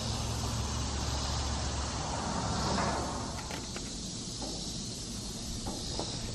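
Light knocks and a scrape of a stone block being bedded on mortar and pressed level under a spirit level, a few faint taps in the second half, over a steady low hum.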